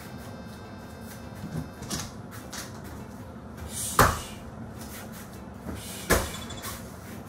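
Heavy punching bag struck hard twice, by a gloved punch about four seconds in and by a kick about two seconds later, each a sharp thud. A few lighter knocks come earlier.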